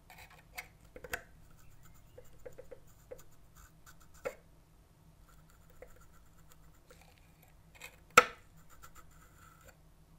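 Metal tweezers scraping and ticking against the rusty wick tubes of a live-steam toy locomotive's spirit burner as the old, crumbling wick is pulled out. Faint scratches and small clicks, with one sharp click about eight seconds in.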